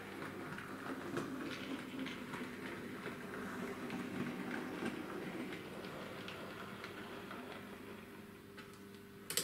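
Bachmann OO gauge Class 56XX model tank locomotive running through sidings: a steady electric motor hum, with faint clicks of the wheels over rail joints and points, and one sharp click near the end.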